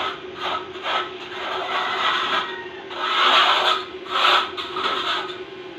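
Paint roller on a long handle rolled up and down a rough cement wall, a rasping rub with each stroke, the strokes coming in uneven swishes, some short and some long.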